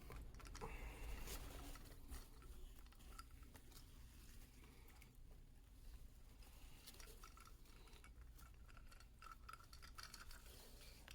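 Near silence with faint rustling and small clicks of hand-sewing: thread being pulled through nylon webbing with a Speedy Stitcher sewing awl.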